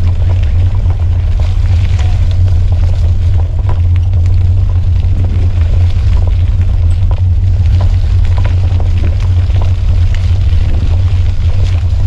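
Wind rumble on a handlebar-mounted camera's microphone as a mountain bike rides a dirt trail: a loud, steady low rumble, with scattered clicks and rattles from the bike over the ground.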